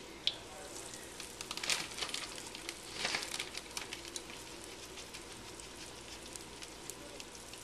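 Flour-coated chicken tenders sizzling and crackling in shallow oil in a frying pan. The sizzle swells twice, about two and three seconds in, as tenders are laid into the oil.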